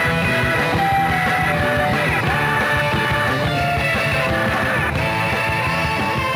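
Rock music: a melody of held guitar notes over bass and a steady beat.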